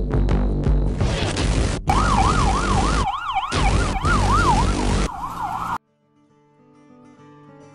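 Music with a beat, then about two seconds in an emergency vehicle siren wavering quickly up and down, about twice a second, over loud background noise. The siren cuts off suddenly near the end and soft music follows.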